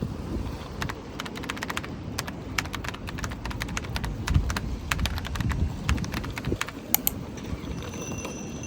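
Low rumbling wind noise on the microphone, with a run of irregular sharp clicks over it.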